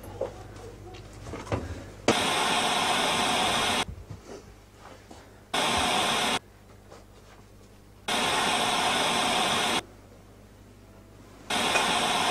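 Harsh hiss of television static, cutting in and out abruptly four times, each burst one to two seconds long at an even level, with quiet gaps between.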